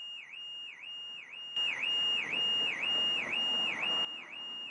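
Car alarm sounding: a high electronic tone that dips and returns about twice a second. It grows louder for a couple of seconds in the middle.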